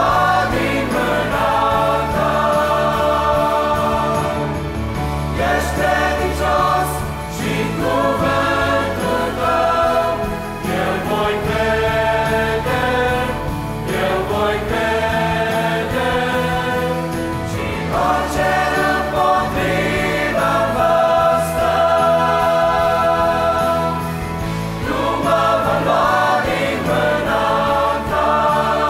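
Mixed youth choir singing a Christian hymn in Romanian, in phrases of a few seconds, over a steady low instrumental accompaniment.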